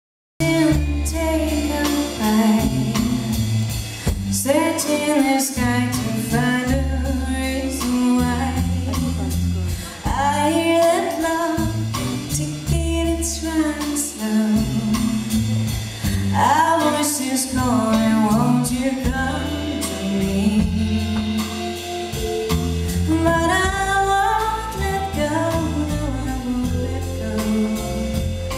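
A woman singing lead with a live band, backed by drums, bass and electric guitar, recorded from the audience.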